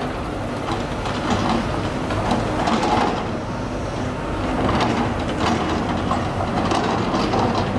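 Steady street traffic noise with a low, continuous engine hum.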